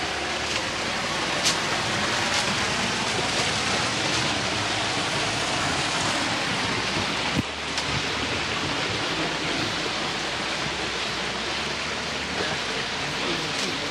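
Wooden runners of a Monte wicker toboggan sliding fast down an asphalt street, a steady rushing, scraping hiss, with a couple of sharp clicks or knocks.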